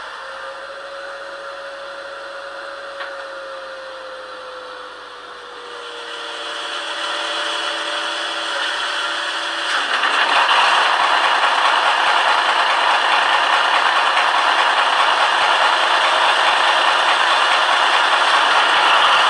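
Diesel engine sound of a Piko V 200 model locomotive, a humming note that slowly falls in pitch. About halfway through, a loud, steady rattle sets in and carries on.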